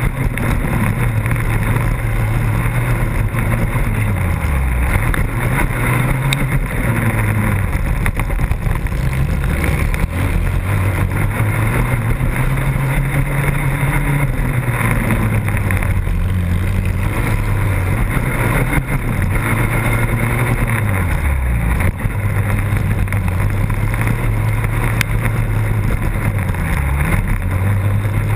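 Racing quad's engine heard from a camera mounted on the machine, revving up and down under hard throttle, with the revs dropping off briefly every four to six seconds as the rider backs off and gets back on the gas. Steady wind and rumble noise on the microphone underneath.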